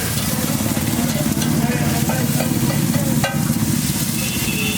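Eggs sizzling and frying on a hot pan, with metal utensils stirring and clinking against it, one sharper clink about three seconds in.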